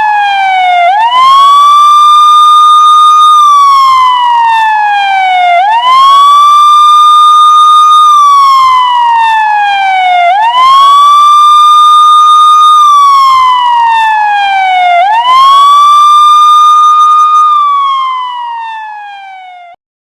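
Police car siren on a slow wail. Each cycle rises quickly, holds its high note for about two seconds, then slides slowly down, repeating about every four and a half seconds. It fades out near the end and stops.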